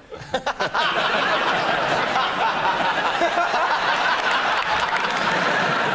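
A studio audience and the panel burst into loud, sustained laughter, swelling in just under a second after a joke.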